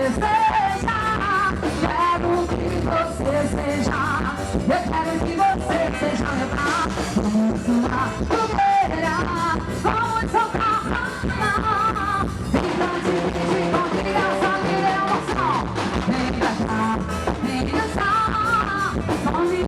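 Upbeat festa junina quadrilha music with a steady beat and a wavering lead melody line over it.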